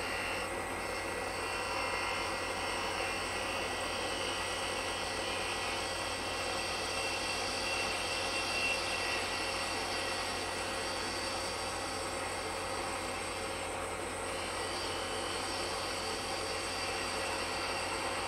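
Wood lathe running steadily with a skew chisel making light finishing cuts on a small maple bottle stopper: an even motor hum and whine with a soft, shifting cutting hiss.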